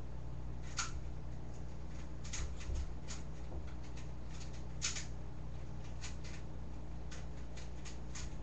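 Irregular clicking of a 3x3 speedcube being turned during a solve, single clicks and short runs of two or three, over a steady low hum.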